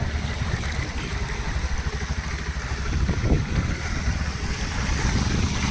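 Motorcycle running as it rides through floodwater, with water sloshing and wind buffeting the microphone.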